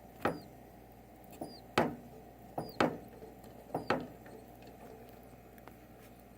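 Short, sharp squeaky peeps from a raw egg, about seven in the first four seconds, some in quick pairs: a bubble of air escaping from the egg, which sounds like a baby chick.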